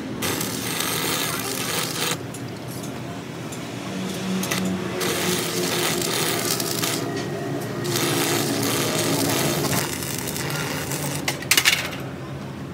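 Gas cutting torch burning through the sheet steel of a truck cab: a hissing rush that eases off and comes back a few times, with a sharper burst near the end.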